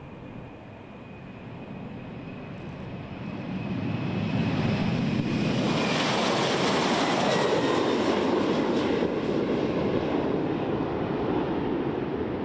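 Twin CFM56 turbofan engines of a Boeing P-8 Poseidon at takeoff power as the jet rolls, lifts off and climbs away. The sound grows much louder about four seconds in and stays loud, with a falling sweep in pitch as it passes. A thin high whine fades out about halfway through.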